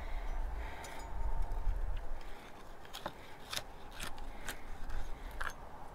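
A carving knife cutting into the scored crackling of a roast pork loin on a wooden board, giving a handful of sharp, separate crackles and clicks. A low rumble sits under the first two seconds.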